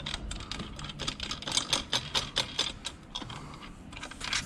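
Quick, irregular small metallic clicks and taps, several a second, as screws are fitted and tightened on a manual chain hoist's hand chain cover.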